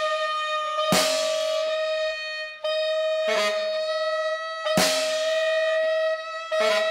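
Free-improvised music: a viola holds one long bowed note, breaking off briefly about two and a half seconds in, while a drum kit adds a few sharp drum and cymbal hits, about a second in, near five seconds and near the end.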